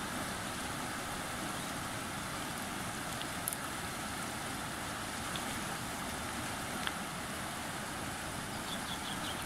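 Shallow river water rushing and rippling over rocks below a weir: a steady, even rush of water.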